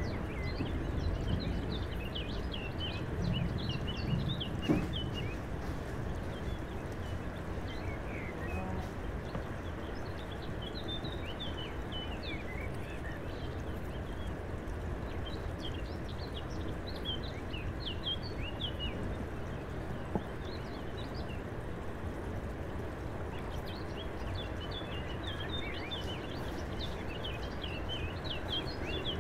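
Small birds chirping in recurring bursts of quick, high twitters over a steady low rushing background. A brief knock about five seconds in and a fainter one just after twenty seconds.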